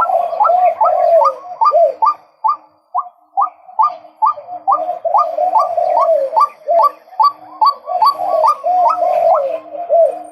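Male white-breasted waterhen calling: a fast series of short upward-sweeping notes, about three a second, over a lower continuous run of calling.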